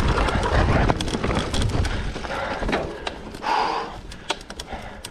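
Mountain bike riding down a dirt trail: wind rumble on the mic and tyre noise, with sharp clicks and rattles from the bike over roots and rocks. The rumble eases about three seconds in.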